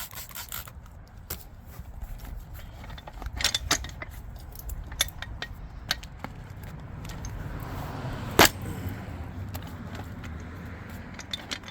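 Scattered metallic clinks and knocks from working a tire bead off a wheel rim by hand, with one sharp knock about eight seconds in, over a steady low rumble.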